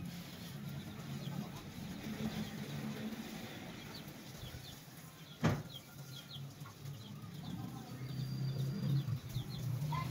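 Birds chirping in short high notes throughout, among backyard poultry, with one sharp knock about halfway through and a low steady hum beneath.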